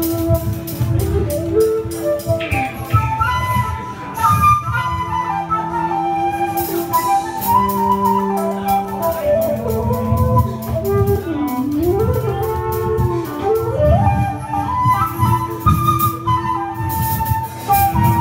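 Live rock band playing, with a flute taking the lead melody over drums and electric guitar. About two-thirds of the way through, one line swoops down in pitch and back up.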